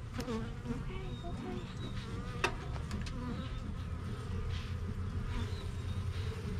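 A honeybee colony buzzing steadily around an open hive, with a single sharp click about two and a half seconds in.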